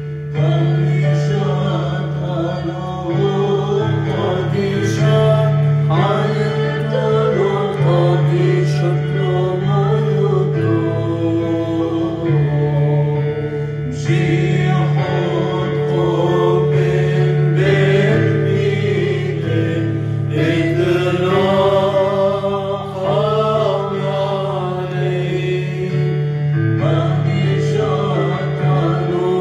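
Church chant: voices sing a slow, melismatic hymn melody over a steady held low drone that shifts pitch a few times.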